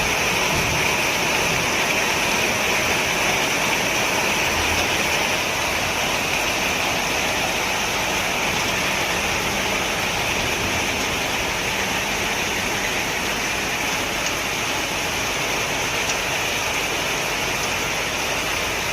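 Light drizzle, the last of a rain shower, falling as a steady, even hiss.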